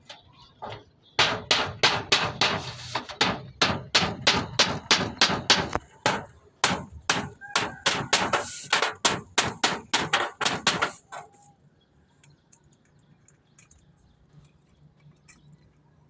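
Hammer blows, about three a second for some ten seconds with a short break midway, then they stop: hammering in the construction of a homemade bird cage.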